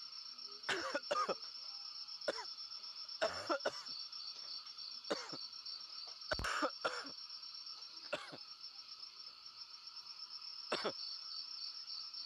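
A man coughing in short, separate bouts, about ten times, the strongest about six and a half seconds in, over the steady pulsing chirp of night insects.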